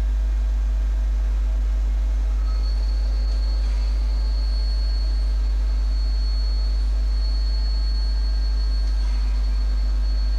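Favretto MC 2T 400 CNC grinding machine running: a steady low hum, with a thin high-pitched whine setting in about two and a half seconds in and holding steady.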